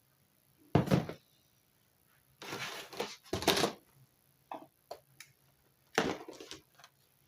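Items being handled and put down: a thump about a second in, a longer stretch of rustling and knocking around the middle, and another knock near the end, with a few small clicks between.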